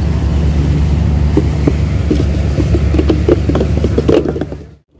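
Fishing boat's engine running steadily with a low drone, with scattered short knocks over it; the sound fades out to near silence just before the end.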